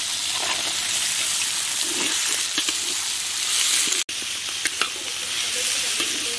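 Sliced radish sizzling in hot mustard oil in a kadhai, stirred with a flat spatula that scrapes and taps against the pan. The sound drops out for an instant about four seconds in.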